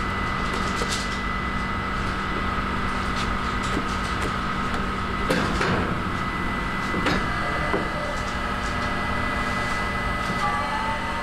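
Steady mechanical hum of a baumkuchen rotating-spit oven running, with a few short scrapes and knocks from a spatula working batter in the oven's metal tray about halfway through.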